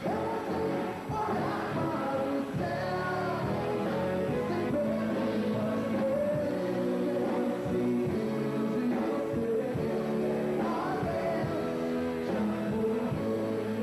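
Live pop-rock band playing a song at a steady level, with singing over the band.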